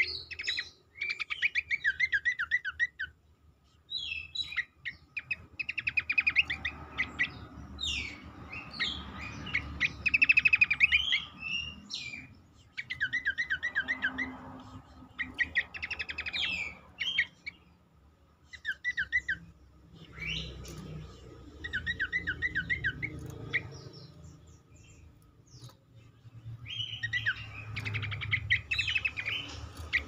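Caged cingcoang babbler singing: phrase after phrase of quick, high chattering notes, each phrase a few seconds long, with short pauses between.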